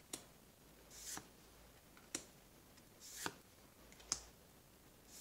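Magic: The Gathering playing cards being flipped through one at a time by hand: a faint slide and click of card stock about once a second, six times.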